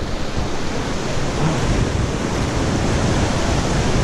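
Rough inlet water churning and washing against the jetty rocks in a steady rush, with wind rumbling on the microphone.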